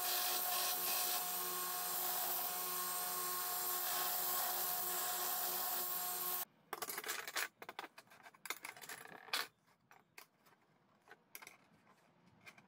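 Electric motor of a homemade belt grinder running steadily with a hum and hiss, cutting off suddenly about six and a half seconds in. Scattered sharp clicks and knocks of metal parts being handled follow.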